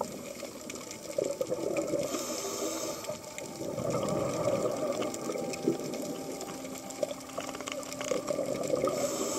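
Underwater recording of a scuba diver's regulator: bubbling, gushing exhaust in uneven surges, with a brief hiss about two seconds in, over a scatter of faint clicks.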